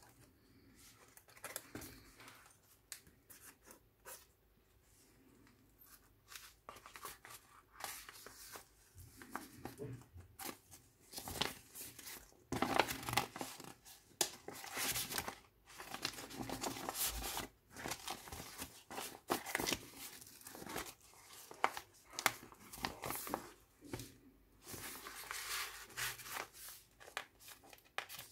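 Paper pages of a handmade junk journal being turned and handled: irregular rustling and crinkling of card, paper and photos, busiest in the middle stretch.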